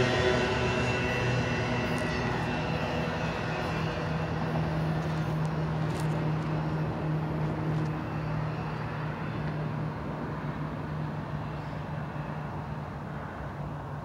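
Double-stack intermodal freight train rolling away on the mainline, its wheel-and-rail rumble with a low steady hum fading gradually as the end of the train recedes.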